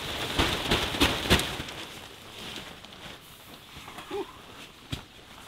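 Nylon camping tarp rustling and crinkling as it is pulled down and handled. After about two seconds it falls quieter, with a few light knocks near the end.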